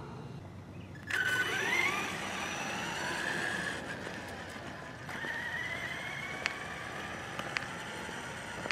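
Traxxas E-Revo Brushless Edition's brushless motor whining as the RC truck pulls away, the pitch rising as it speeds up about a second in and again about five seconds in, with two sharp ticks late on. The truck is limping along on a front tire torn off its rim.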